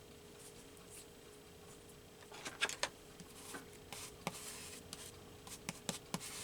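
Quiet handling of paper cutouts and craft tools on a work table: a scatter of soft rustles and light clicks, busier from about two seconds in, over a faint steady hum.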